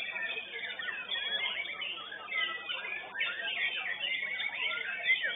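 White-rumped shama (murai batu) singing in a contest cage: a fast, unbroken stream of varied whistles and sweeping notes, overlapping with other songbirds singing at once. Heard through a CCTV camera's microphone, thin and cut off at the top.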